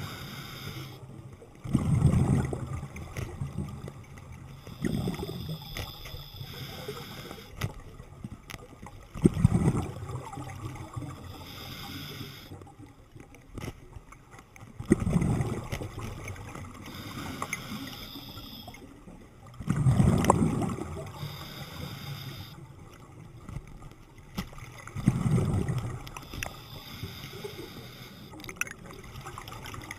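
A diver's exhaled breath bubbling out underwater. A loud gurgling rush of bubbles comes about every five seconds, with a fainter hiss between the breaths.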